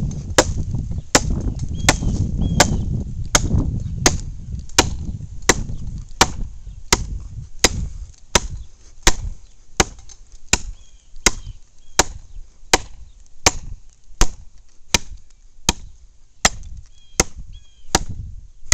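Heavy Cold Steel rifleman's hawk tomahawk chopping into a dry log: a steady run of sharp blade strikes, about three every two seconds.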